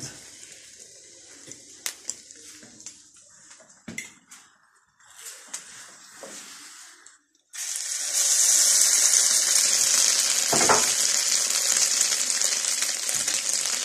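Egg-and-flour-coated slices of giant puffball mushroom frying in hot oil in a pan: a steady, loud sizzle that starts suddenly a little past halfway. Before it, softer clicks and clinks of a fork working a piece in a bowl of beaten egg.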